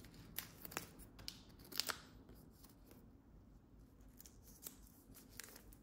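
Faint handling noise of a coiled headphone aux cable being unwrapped by hand: a few light clicks and rustles, mostly in the first two seconds.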